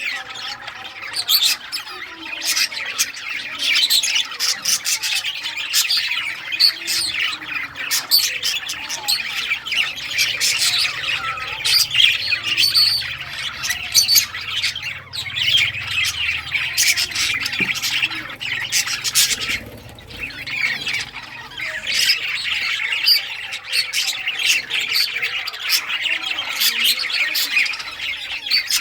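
A flock of budgerigars chattering and chirping continuously, many quick overlapping chirps and squawks, with a brief lull about twenty seconds in.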